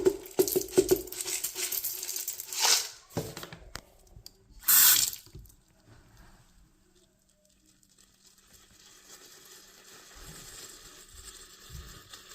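Drain-cleaner crystals rattling as they are shaken into a bathroom sink drain, then a short rush of tap water about five seconds in. From about nine seconds a faint steady sizzling sets in as the caustic crystals react with the hair clogging the drain.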